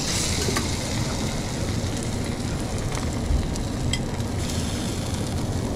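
Food frying on a hot cooking surface, a loud sizzle that starts suddenly, eases after about a second and swells again near the end, over a steady low rumble with a few light clicks.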